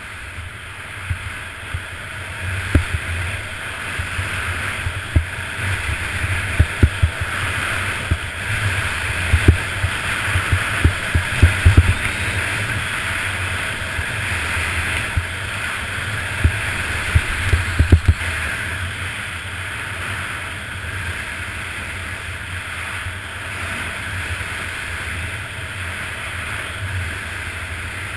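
Blizzard SL FIS slalom skis scraping and hissing over snow, with a steady wind rumble on the microphone. Through the first half come many sharp thumps as the skis hit mogul bumps, and after that they thin out to a steadier slide.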